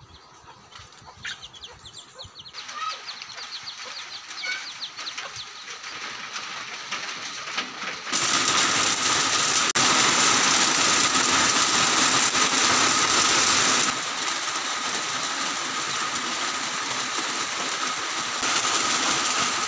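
Rain falling on trees and ground, lighter at first with birds chirping, then much heavier and louder from about eight seconds in.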